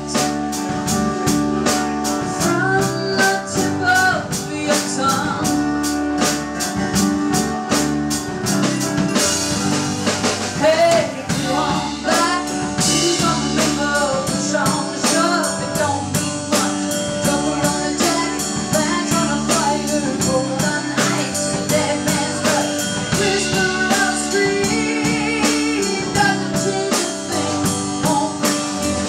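Live band playing a blues-rock song: a drum kit keeping a steady beat with cymbal crashes about nine and twelve seconds in, guitars and bass, and a woman singing.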